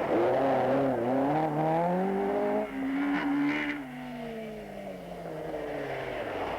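Citroën Visa Trophée rally car engine revving hard, its pitch climbing for the first couple of seconds. Then the pitch slides steadily down and the sound gets quieter.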